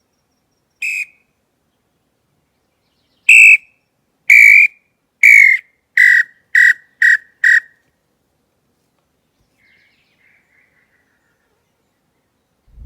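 Wooden 'pio' hunting call blown to imitate the pé-roxo (tataupa tinamou): one whistled note, a pause, then a loud run of seven whistled notes that come faster and faster. About two seconds later a faint, short run of descending notes answers, a distant tinamou replying to the call.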